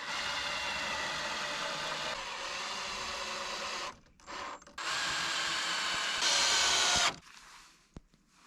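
A handheld power tool running in three bursts: a run of about four seconds, a brief blip, then another run that gets louder over its last second before cutting off. A single sharp click follows near the end.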